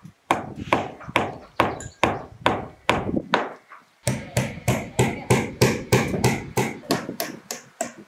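Hand hammer striking repeatedly on a wooden roof, a sharp knock with a short ring on each blow. It goes at about two blows a second, breaks off briefly near the middle, then picks up faster at about four blows a second.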